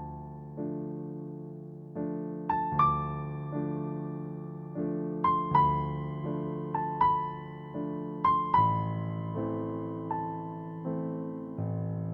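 Slow, gentle piano music: soft chords change every second or so under a simple melody of single high notes, each note fading away.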